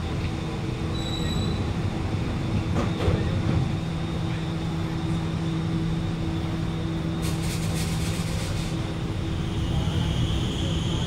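Alstom Movia R151 metro train standing at the platform, its onboard equipment humming steadily. Partway through there is a short burst of high clicking, and near the end a higher whine comes in.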